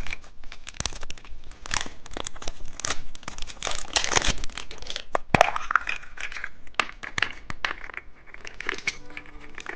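Candy packaging crinkling and tearing as a packaged candy is unwrapped, a dense run of crackly rustles.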